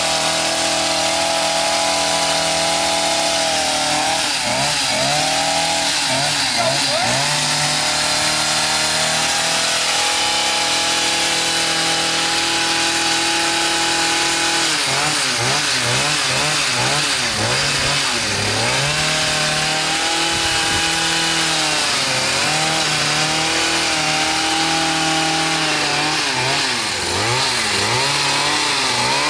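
Two-stroke petrol hedge trimmer engine running at high revs while trimming a hedge, its pitch dipping and recovering several times as the throttle is eased and squeezed and the blades cut.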